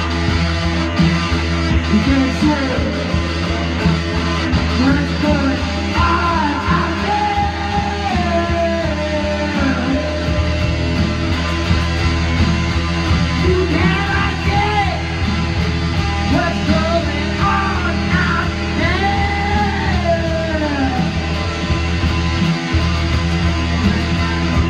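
A rock band jamming live on electric guitars, loud and continuous, over a steady low droning bass note that shifts about a third of the way through. Sliding, wailing lines run over the top for most of the stretch.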